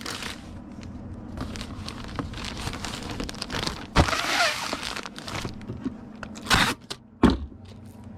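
Plastic poly mailer crinkling and rustling as a folded t-shirt is packed into it. There are a few sharp knocks, and a longer ripping sound about four seconds in.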